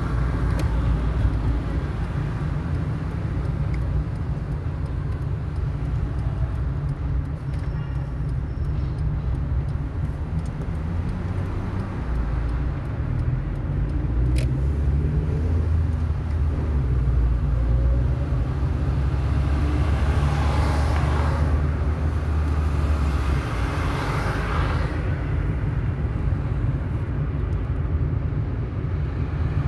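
Car engine hum and tyre-on-road rumble heard from inside the cabin while driving in city traffic, with a deeper engine drone holding steady through the middle. Three swells of noise from passing vehicles come in the later part.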